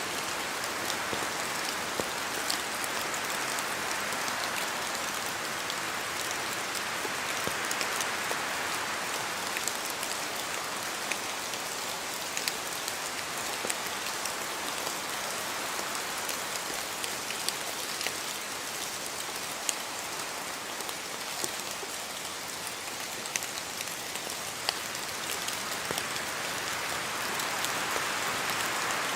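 Steady rain in a forest, with many separate drops falling from the trees heard as sharp taps over the continuous hiss of the rain. The hiss swells and eases gently a couple of times.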